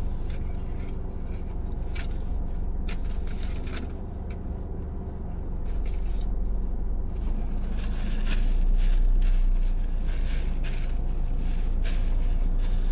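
Steady low rumble of a car running, heard from inside the cabin, with bouts of crinkling from a foil sandwich wrapper being handled.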